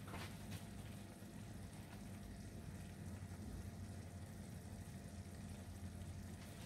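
Chicken, tomato and spice mixture simmering faintly in a frying pan on a gas burner, under a steady low hum.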